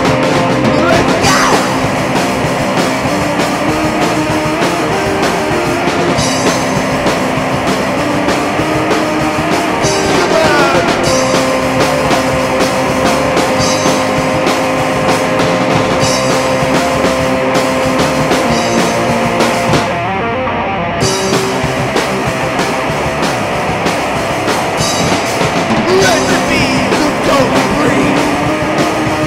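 Doom rock band demo recording: electric guitar riffs over a drum kit with cymbals. The cymbals drop out briefly about two-thirds of the way through.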